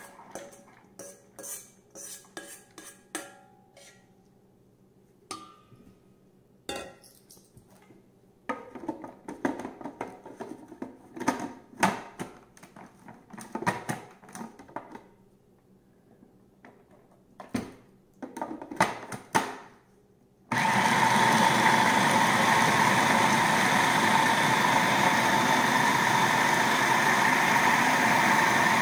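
Clattering and knocks as soaked chickpeas and fava beans are tipped from a steel bowl into a food processor and its lid and pusher are fitted. About twenty seconds in, the food processor's motor starts suddenly and runs steadily and loudly, grinding the beans for falafel dough.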